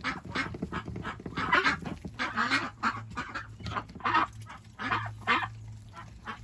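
Domestic geese and ducks calling in a rapid run of short, overlapping honks and quacks.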